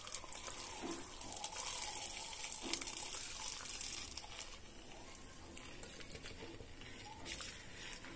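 Boiled milk pouring in a stream from a steel vessel through a wire-mesh strainer into a steel bowl, a steady splashing pour that gets quieter about halfway through.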